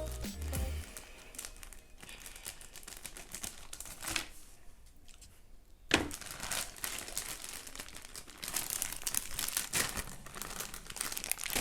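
Plastic candy packaging being torn open and crinkled: a bag of Jolly Rancher hard candies and its wrappers. There is a sharp click about six seconds in and denser crinkling near the end.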